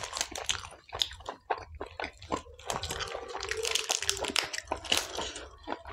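Close-up eating sounds: a crisp fried bhatura bread being torn apart by hand and chewed, with irregular crackles and wet mouth clicks.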